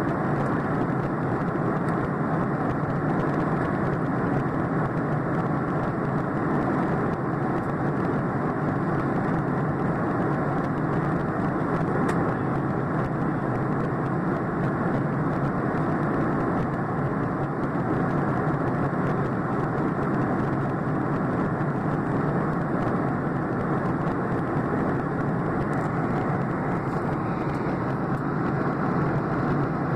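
Steady cabin roar of a jet airliner in flight, the wing-mounted jet engines and rushing airflow heard from inside the cabin as an even, unbroken rumble.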